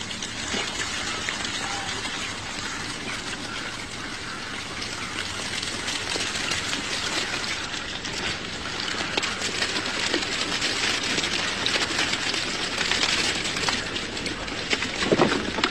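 Flock of sheep on the move along a muddy farm track: a steady, dense rustle of many hooves, thick with fine ticks.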